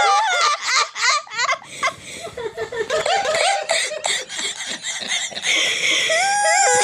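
A boy laughing: high-pitched giggles in quick bursts, with a longer drawn-out laugh near the end.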